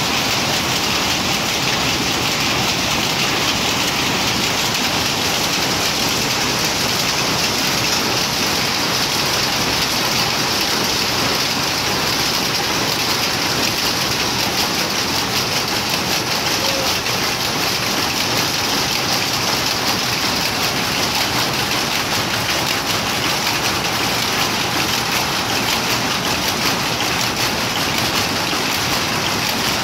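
Power looms running: a loud, steady, dense mechanical noise that holds without a break.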